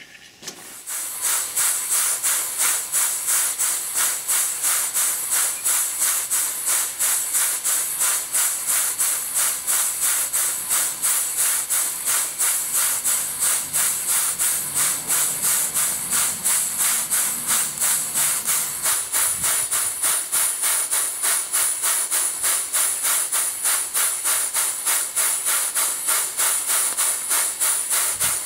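Southworth model duplex steam boiler feed pump running on live steam, its exhaust puffing in a fast, even, hissing rhythm that starts about a second in.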